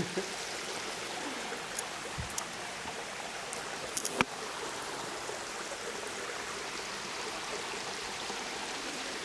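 Steady rush of a shallow creek with water spilling down a concrete dam face. A few short clicks about four seconds in.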